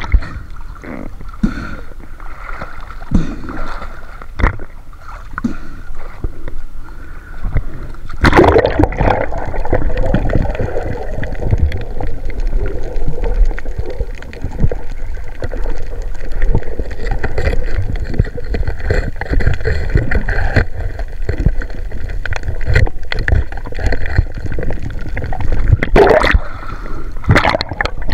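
Water gurgling and sloshing close to the microphone, with scattered knocks and two louder splashes, about eight seconds in and near the end.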